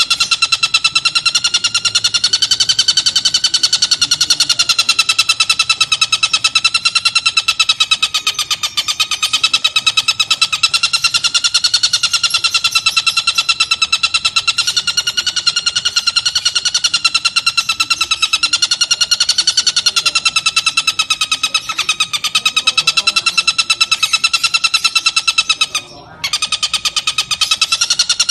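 Oriental dollarbird (tengkek buto) giving a rapid, unbroken, harsh chattering call at a slightly wavering pitch, breaking off briefly near the end.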